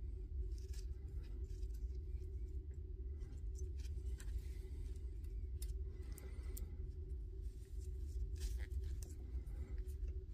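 Scattered small clicks, taps and rustles of parts and tools being handled on a workbench, over a steady low hum.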